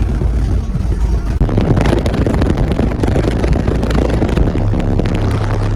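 Car audio system of twelve 15-inch subwoofers in a 6th-order bandpass enclosure playing deep bass notes at very high volume, the notes changing pitch a few times, with a crackling, overloaded noise on top.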